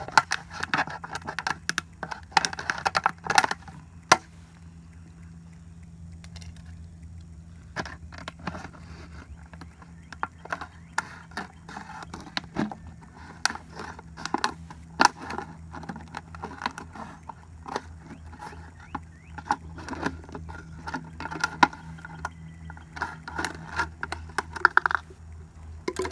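A thin plastic 2-litre soda bottle being cut open, first a knife sawing into it with scraping strokes, then scissors snipping through it, the plastic crackling and clicking many times. A steady low hum runs underneath.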